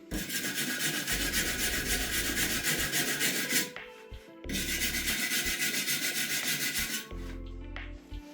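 Abrasive rubbing on the surface of a cast-iron pot lid, in two long scouring passes of a few seconds each with a short break just under four seconds in.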